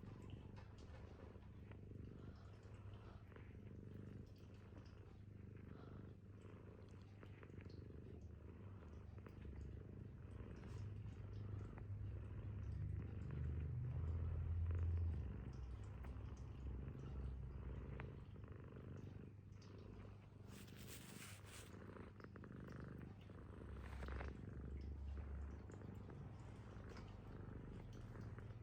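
American Shorthair cat purring steadily close up, the purr swelling loudest about halfway through. A short burst of hiss-like noise comes about two-thirds of the way in.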